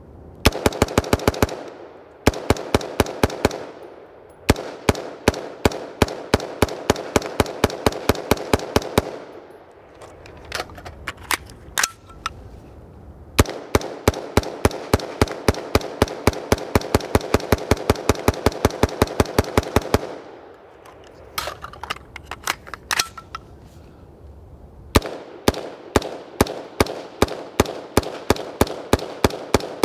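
BCM AR-15 in 5.56 mm firing rapid semi-automatic strings, about five shots a second, with pauses of one to four seconds between strings.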